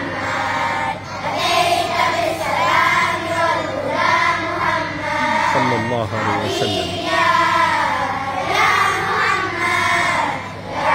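A choir of children singing a hamd (devotional song of praise) together, in sustained melodic phrases a second or two long.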